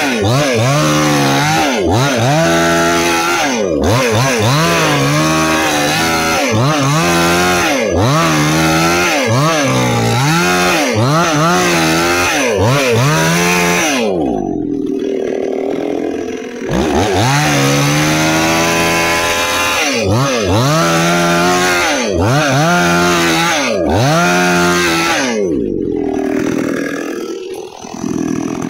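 Nagano MN 6000 two-stroke chainsaw cutting through a hardwood log at full throttle, its engine note dipping and recovering about once a second under the load of the cut. It drops to idle about fourteen seconds in, revs back up into the cut a couple of seconds later, and falls back to idle near the end.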